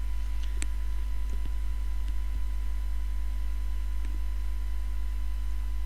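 Steady low electrical hum, like mains hum in the recording, with a few thin steady tones above it. A few faint light ticks come in the first half.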